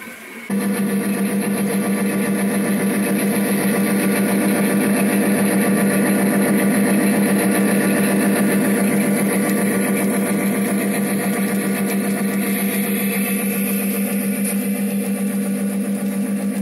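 Diesel locomotive engine sound running steadily with a fast, even pulse as a model freight train passes. It starts suddenly about half a second in.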